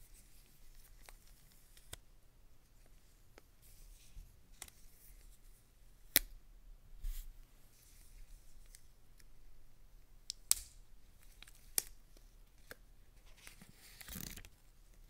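Gloved hands handling a new Apple Watch Series 3 and peeling off its clear plastic protective film: scattered soft crinkles and small ticks, three sharp louder ticks, and a longer crinkling peel of the film near the end.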